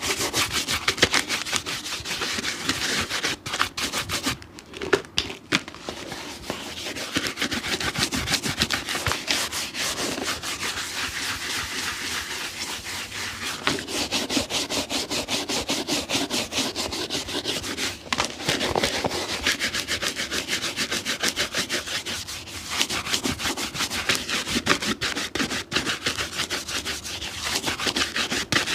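Fast, steady back-and-forth scrubbing strokes on a shoe, as in brushing or abrading it clean during restoration, with a short break about five seconds in.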